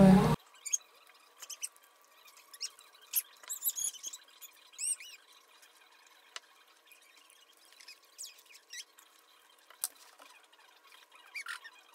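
Soft, scattered crinkles, clicks and little squeaks from a small child handling cellophane lollipop wrappers and sucking on lollipops.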